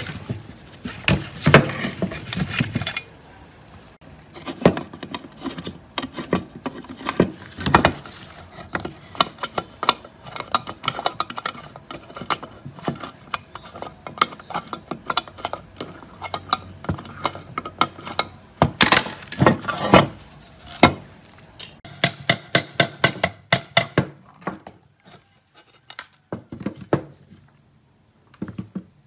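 Irregular metal clinks, taps and scrapes as hand tools pry, grip and pull parts out of the rusty housing of a Hitachi CB12VA2 saw being taken apart. A quick run of clicks comes about three-quarters of the way through.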